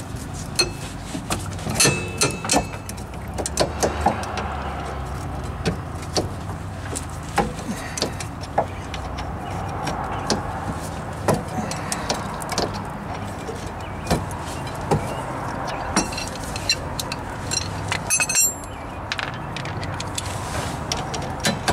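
Hand tools at work on the rusty rear brake caliper of a 2011 Honda CR-V: scattered metallic clicks and clinks of a socket and ratchet on the caliper bolts, with a quick run of clicks about three-quarters of the way through, over a steady low rumble.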